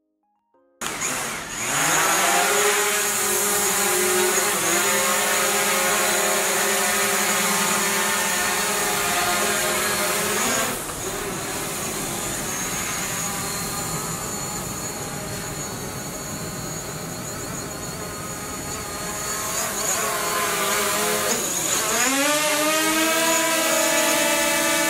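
DJI Mavic Pro quadcopter's propellers whining as the motors spin up about a second in, the pitch shifting as the drone flies. The whine drops and grows quieter around the middle, then rises and grows louder again near the end.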